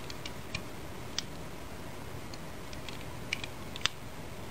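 Scattered small clicks and taps of a 1911 high-capacity pistol magazine and its +2 base pad being handled as the magazine spring is pressed down and the base pad worked on. The sharpest clicks come about a second in and near the end, over a steady faint hiss.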